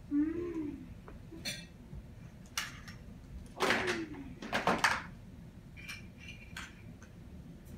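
Toy trucks and wooden blocks clacking and clattering together on the floor, a string of sharp knocks with a louder clatter in the middle. A child makes brief voiced play noises near the start and again during the loud clatter.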